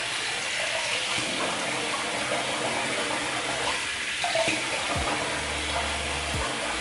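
Cold water running from a bathroom tap into the sink, splashed onto the face to rinse off shaving lather.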